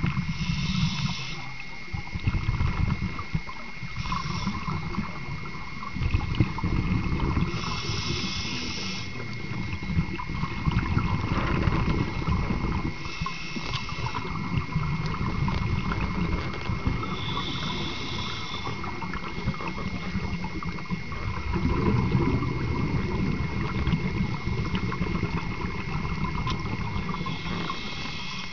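Scuba regulator breathing heard underwater: a short hiss roughly every four to five seconds, with a low bubbling rumble of exhaled air in between.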